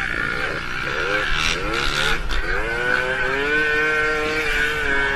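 Motorcycle engine accelerating: its pitch climbs in several quick sweeps, dropping back between them as it shifts up through the gears, then settles to a steady note from about three seconds in.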